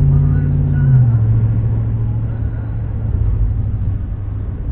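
Car engine running steadily, heard from inside the cabin, its low hum dropping in pitch about a second in as the vehicle eases off, with tyre noise from the wet road underneath.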